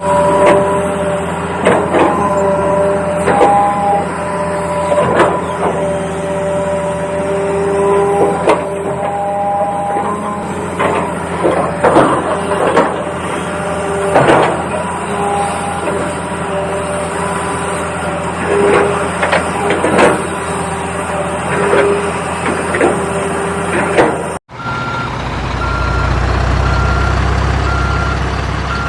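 Electronic sound effects from a toy RC construction vehicle: steady tones switching pitch, mixed with frequent plastic clicks and knocks. Near the end, after an abrupt cut, the toy's reversing beep repeats evenly over a low engine-like rumble.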